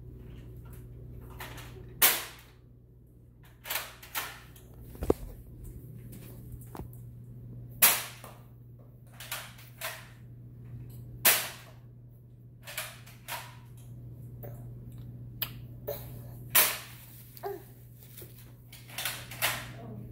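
Toy foam-dart blaster being handled and fired: about fifteen sharp pops and clacks at irregular intervals, four of them much louder than the rest.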